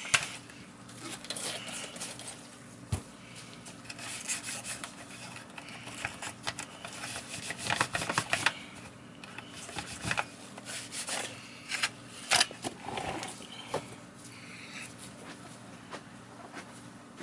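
Hands handling and rubbing plastic parts of a Miele S500 vacuum cleaner during servicing: irregular scraping and rubbing with scattered clicks and knocks, over a faint steady hum.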